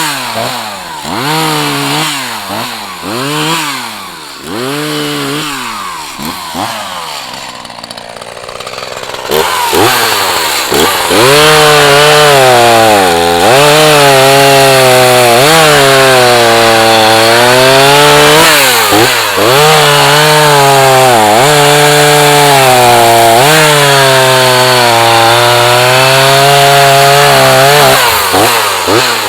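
Echo CS-4010 two-stroke chainsaw, first revved up and down in quick blips about once a second. From about ten seconds in it runs at sustained full throttle through a cut, the engine pitch sagging and recovering repeatedly as the chain loads up in the wood, until the throttle drops near the end.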